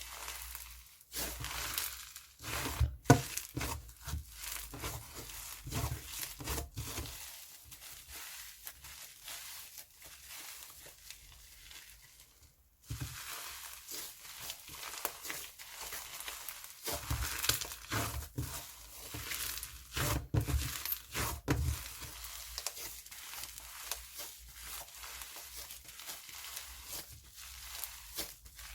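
Hands working snowflake slime, squishing, stretching and pressing it, with dense runs of small pops and clicks. The loudest pop comes about three seconds in, and there is a brief near-quiet pause just before the halfway point.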